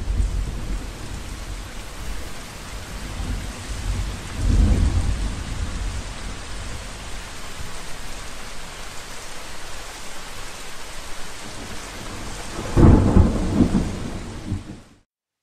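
Steady heavy rain with rumbles of thunder: one at the start, one about four seconds in, and the loudest near the end. The sound then cuts off suddenly.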